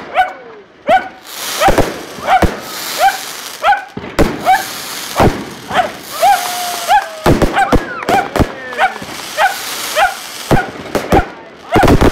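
Fireworks and firecrackers banging at an irregular pace, with a dog barking excitedly at them over and over. A dense rattle of bangs starts near the end.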